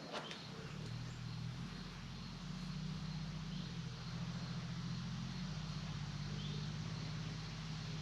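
Heat gun running with a steady hum, coming on about half a second in.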